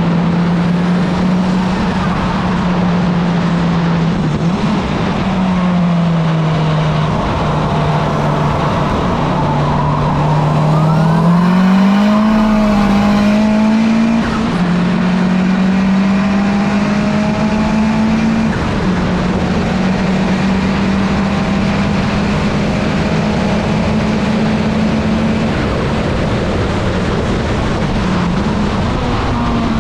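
Proton Waja's engine running hard on track, heard from a front-bumper microphone. Its note holds steady for stretches and dips and climbs a few times, under heavy wind and road rush.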